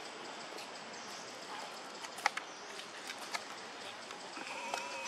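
A wavering, high-pitched cry from a baby macaque starts near the end, over a steady hiss of background noise. Two sharp clicks come earlier.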